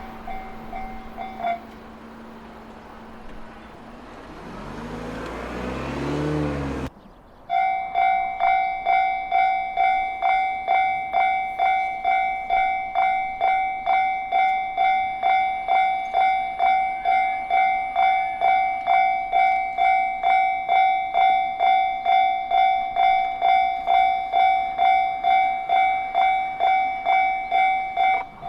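Japanese railway level-crossing warning bell begins ringing about seven seconds in: a steady metallic clang repeating about twice a second, signalling that a train is approaching. Before it, a road vehicle passes.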